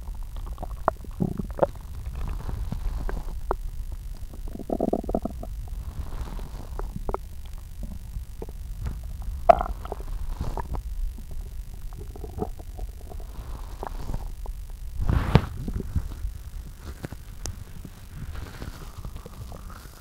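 A human stomach growling and gurgling from an upset stomach: a low rumble under a string of short gurgles and squeaks, with a longer gurgle about five seconds in and a strong one about fifteen seconds in.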